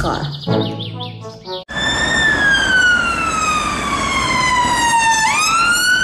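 Ambulance siren wailing over road noise: one long, slow downward sweep, then a quick rise back up near the end. It cuts in suddenly after a short stretch of children's music.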